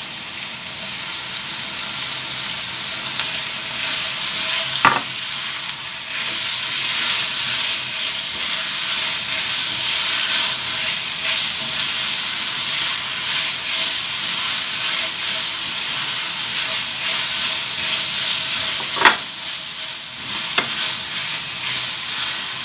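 Shrimp and sliced onions sizzling in hot oil in a wok as they are stir-fried with a spatula. There are a few sharp knocks of the spatula against the pan: one about five seconds in and two near the end.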